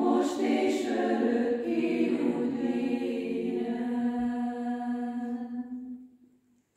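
Women's choir singing a cappella, settling into a long held final chord that dies away about six seconds in.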